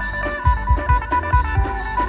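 Live klong sing band music: a quick plucked-string lead melody over a fast, steady drum beat with thudding bass drum.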